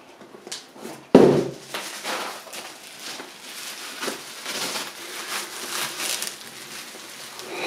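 Bubble wrap crinkling and crackling as it is handled and pulled open around a packaged set of model railway wagons, with one loud thump about a second in as the wrapped package is set down on the board.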